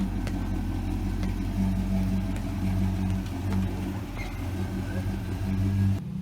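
Car engine running at a steady speed, with a low, even hum; near the end the sound changes abruptly to a quieter hum.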